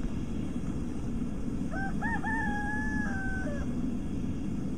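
A rooster crows once, about two seconds in: two short notes, then a long held note that sags slightly at the end. A steady low rumble runs underneath.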